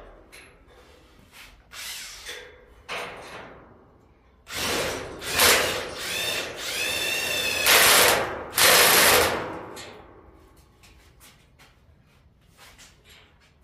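Cordless drill running in several bursts against a steel rack, its motor pitch rising during one run, with a few light knocks before it starts.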